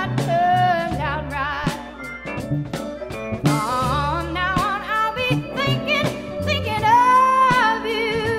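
Background music: a song with a singing voice over drums and bass.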